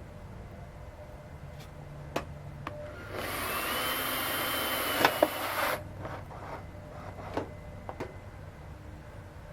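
Pneumatic air shears run for about two and a half seconds partway through, cutting sheet-metal ductwork: a loud air hiss with a steady high whine. A few sharp metal clicks and clanks come before and after.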